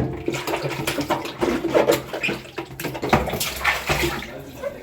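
Water splashing and sloshing with irregular light knocks, as fridge compartments and shelves are rinsed in vinegar water.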